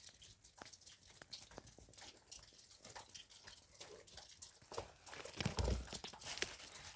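Faint scattered clicks and rustling, with a few louder knocks and a low thud about five and a half seconds in.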